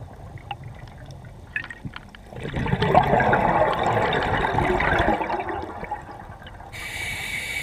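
Scuba diver breathing through a regulator underwater: a bubbling rush of exhaled air from about two to five seconds in, then the hiss of an inhalation near the end. Faint clicks in the quieter stretch before the exhalation.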